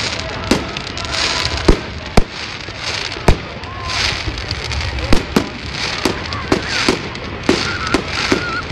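Fireworks display: a run of sharp bangs from bursting aerial fireworks at irregular intervals, several a second at times, with the loudest about two and three seconds in and again around five seconds.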